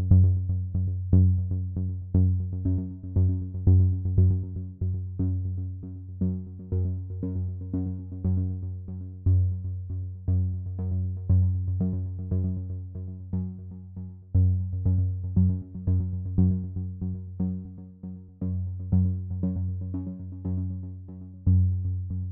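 Background electronic music: a synthesizer line over a deep bass and a steady drum-machine beat.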